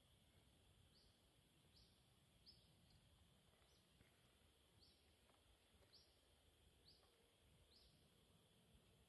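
Faint outdoor quiet with a small bird's short high chirp repeated about once a second.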